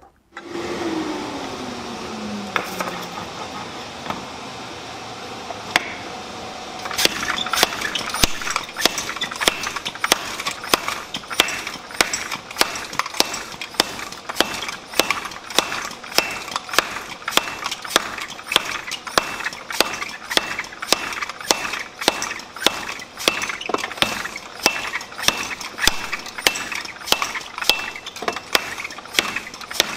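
Treadle hammer striking red-hot steel on an anvil, a steady rhythm of sharp ringing metal blows that starts about seven seconds in. Before the blows, a steadier mechanical sound with a falling tone.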